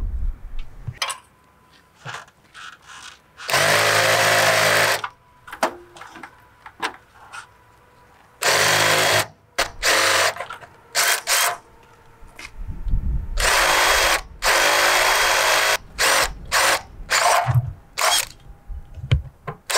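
Power drill boring holes through the school bus's sheet-metal skin, run in several stop-start bursts of one to two seconds with short blips between.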